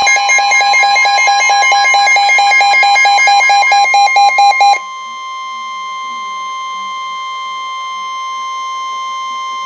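Emergency Alert System alert tones for a severe thunderstorm warning. For about five seconds a fast-pulsing electronic beeping and warbling data tones sound over a steady tone. Then the steady alert tone carries on alone and cuts off sharply near the end.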